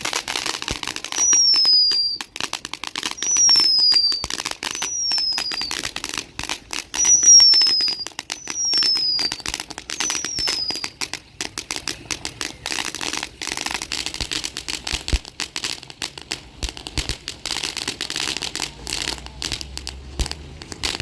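TNT Fireworks Killer Bee, a screaming firework, letting out six short whistles over the first eleven seconds, each falling in pitch. Dense crackling runs under them and carries on after the whistles stop.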